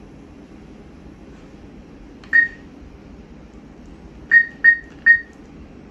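ATM keypad beeping as keys are pressed to enter a withdrawal amount: one short high beep about two seconds in, then three quick beeps near the end. A low steady hum runs underneath.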